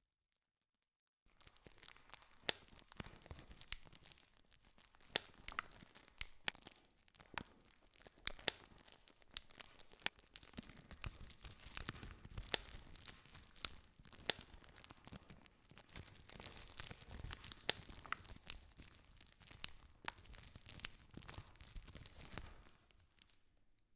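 Campfire crackling: burning wood giving off frequent sharp pops and snaps over a steady hiss. The sound is cut out completely for about the first second and dies away near the end.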